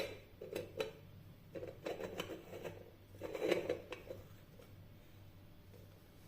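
Light clicking and clattering of household objects being handled, in a few short bursts over the first four seconds, then only a low steady hum.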